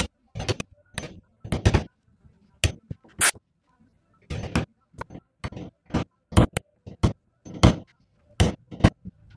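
Hammer striking a wood chisel in a series of sharp taps, about two a second and unevenly spaced, chopping out the recess for a bowtie inlay in a wooden frame corner.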